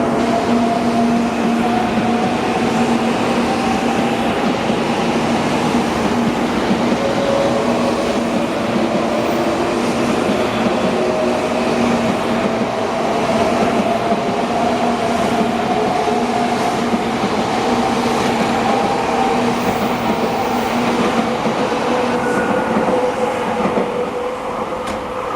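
300 series Shinkansen train pulling away: a steady running rumble with a whine from the motors that rises slowly in pitch as the train gathers speed.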